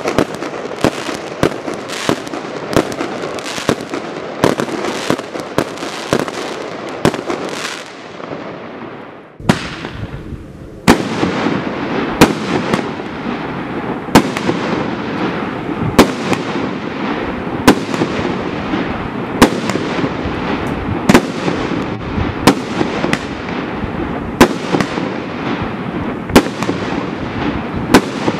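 Consumer barrage cakes firing: Primed Pyro's Russian Roulette cake lets off a rapid run of shots over dense crackle, several a second, that dies away about a third of the way in. After a short lull the Jackpot cake starts, with louder bangs about every two seconds and smaller shots between them over a steady crackle.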